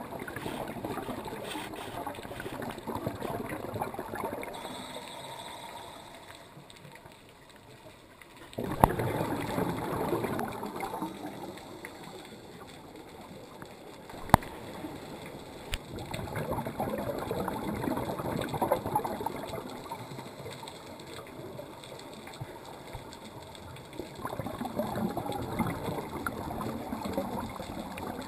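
Underwater recording of a scuba diver's breathing: surges of bubbling from exhaled air, each lasting a few seconds, with quieter stretches between breaths. Two sharp clicks stand out, about 9 and 14 seconds in.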